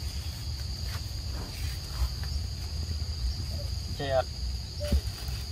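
Insects making a steady, high-pitched drone over a low rumble. About four seconds in there is a short pitched call.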